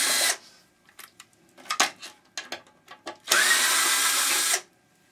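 Power drill backing out a screw: one burst stops just after the start, and a second burst of about a second and a half begins about three seconds in, its pitch rising as the motor spins up. Small clicks and knocks of handling come between.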